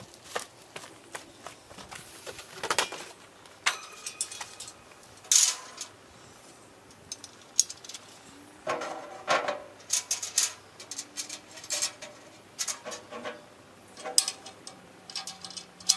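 Steel smoker parts being handled and fitted: the wire-mesh side shelf and the sheet-steel body clank and rattle in irregular metal knocks, a few of them ringing briefly.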